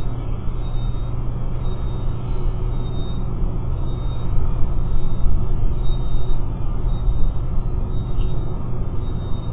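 Steady low rumble with a faint steady hum under it, picked up by the nest camera's microphone.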